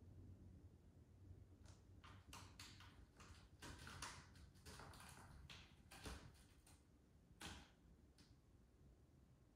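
Near silence broken by a scatter of faint, irregular light clicks and taps.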